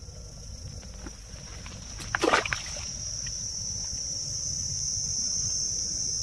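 A fish dropped into a plastic bucket of water makes a short splash about two seconds in. Steady high-pitched insect buzzing, crickets, runs underneath.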